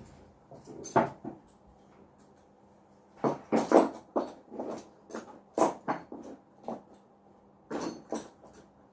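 Small hard objects being handled and set down by hand, making irregular clicks and clatters, busiest in the middle of the stretch.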